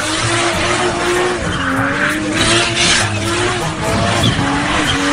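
Holden Commodore doing a burnout: the engine is held at high revs, its pitch wavering up and down, over the continuous screech and hiss of spinning tyres.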